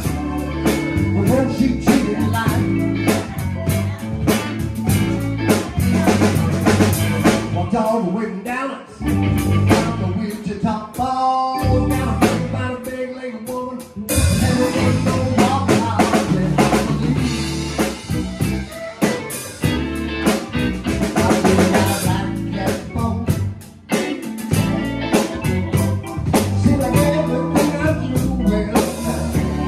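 Live blues band playing a funky shuffle: two electric guitars through Marshall amplifiers over a drum kit. The band stops briefly a few times, leaving a single held guitar note, then crashes back in.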